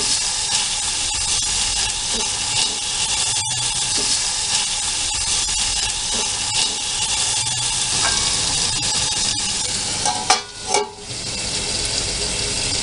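Diced pineapple sizzling as it fries in hot oil in an aluminium kadhai, with a wooden spatula scraping and stirring it. The sizzling breaks off briefly about ten seconds in.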